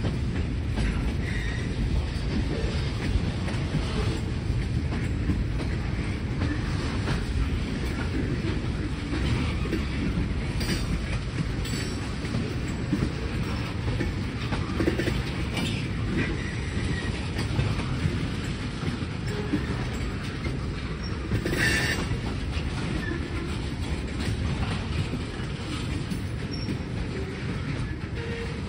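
Freight train cars rolling slowly along the track: a steady low rumble with a few sharp clicks, the loudest about three-quarters through.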